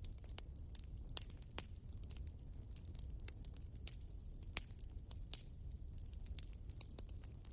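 Wood fire burning in a fireplace: a steady low rumble of flame with frequent sharp, irregular crackles and pops from the logs.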